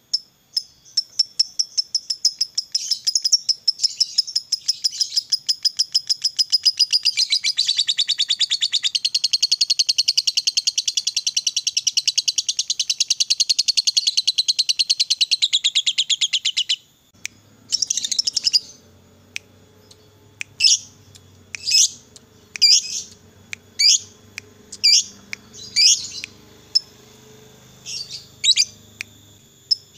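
Lovebird "ngekek": a long, fast chattering trill of high, shrill notes that runs for about seventeen seconds and stops abruptly, the extended chatter (ngekek panjang) that lovebird keepers prize. After it the bird gives separate sharp chirps, about one a second.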